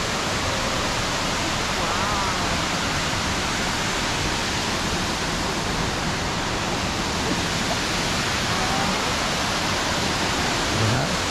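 Steady, loud rush of a waterfall.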